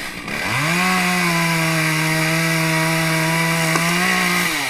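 Gas chainsaw revved from idle up to full throttle about half a second in, held at a steady high pitch for about four seconds, then let back down toward idle.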